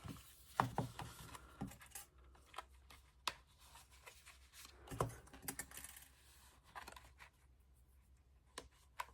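Hands working paper and clips: scattered light clicks and ticks with soft paper rustling, a few sharper clicks standing out.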